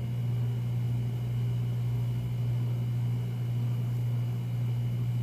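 Steady low hum with a faint even hiss, unchanging throughout; no distinct knocks or clinks stand out above it.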